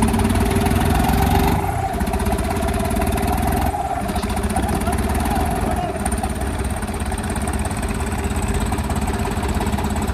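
Diesel tractor engines running steadily. The sound shifts abruptly about a second and a half in, with brief breaks near four and six seconds.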